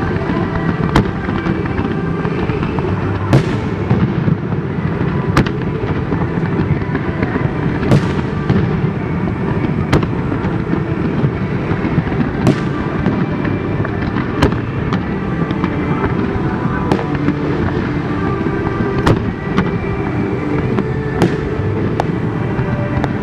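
Aerial fireworks shells bursting, a sharp bang about every two seconds, some followed by a short crackling trail, over a steady low rumble of background noise.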